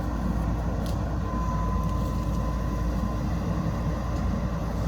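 JCB backhoe loader's diesel engine running steadily, a continuous low rumble.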